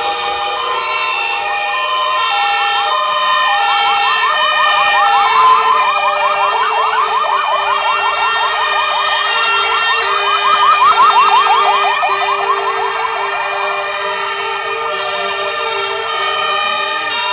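Several fire engines' sirens sounding at once as a column of fire vehicles passes: two-tone sirens stepping between two pitches, overlapped by a fast yelping siren from about six to twelve seconds in, and a slower rising wail near the end.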